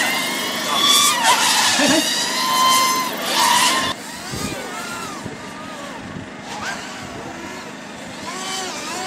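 Racing quadcopter drones' motors whining, the pitch gliding up and down again and again as the throttle changes. About four seconds in the sound drops to a quieter, more distant whine with slower rising and falling sweeps.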